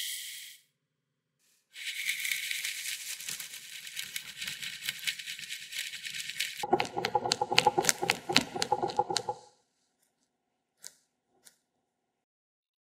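Heavy cream and sugar beaten by hand with a wire whisk in a glass bowl: quick strokes, liquid swishing and the wires clicking against the glass, louder and faster about halfway through, stopping about two-thirds of the way in. A brief hiss of sugar pouring into the cream comes at the very start.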